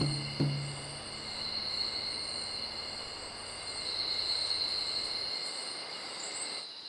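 A chorus of crickets and other insects: several steady, high-pitched trills that swell slightly midway. A last low drum beat of music fades out in the first half-second.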